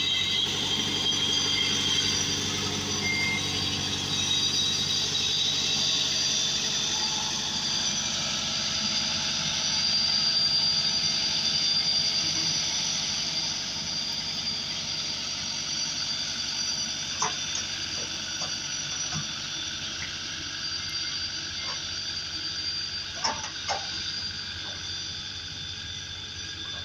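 Sakai R2S road roller engine running steadily as the roller travels over a sand road, with steady high-pitched tones above the engine note. The sound slowly fades as the roller moves away, and a few short clicks come in the second half.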